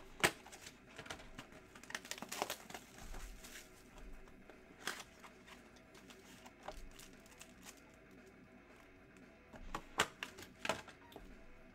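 Trading card packaging being handled and opened: crinkling and tearing of wrappers with scattered sharp clicks and taps, in clusters about two seconds in, around five seconds, and again near the end.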